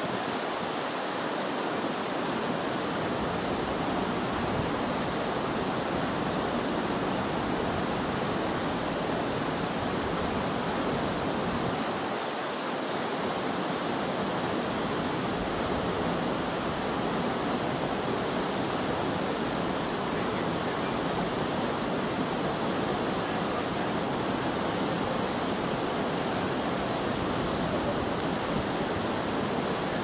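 Rushing whitewater of a rocky mountain river: a steady wash of water pouring over and around boulders in shallow rapids.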